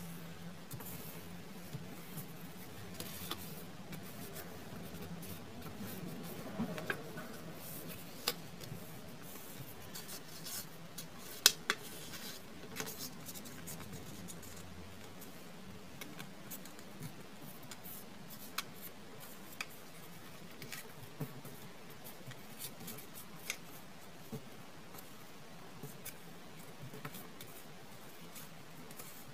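A small square of origami paper folded and creased by hand: soft rustling and fingernail scrapes along the folds, with scattered sharp clicks, the loudest about eleven seconds in.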